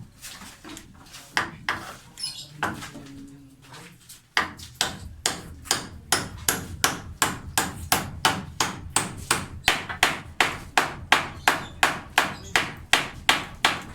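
Hammer blows chipping away at a concrete slab: a few scattered strikes, then from about four seconds in a fast, steady run of hard blows, about three a second.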